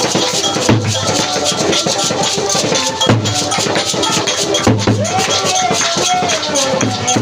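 Music with a fast beat of drums and shakers over recurring bass notes; a gliding melody line comes in about five seconds in.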